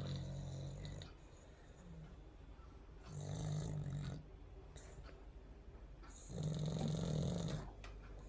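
A sleeping dog snoring: three snores, each about a second long, coming roughly every three seconds, with quieter breathing in between.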